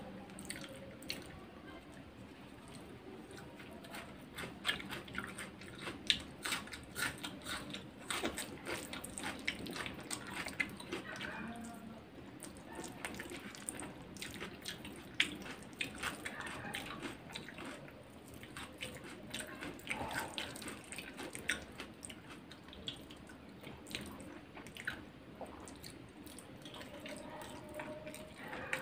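Close-up eating sounds: fingers squishing and mixing biryani rice with gravy on the plate, along with chewing and sipping, heard as many small wet clicks and smacks.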